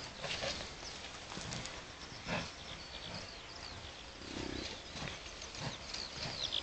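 American bison giving one short, low grunt about four seconds in, with small birds chirping throughout and a few scattered knocks.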